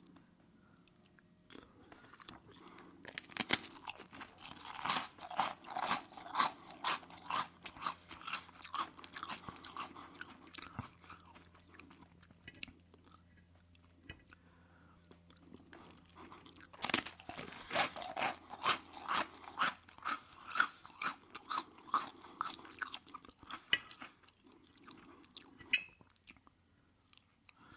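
Close-miked chewing of aubergine cooked in sunflower oil: two long runs of rhythmic chewing at about two chews a second, with a quieter pause between them.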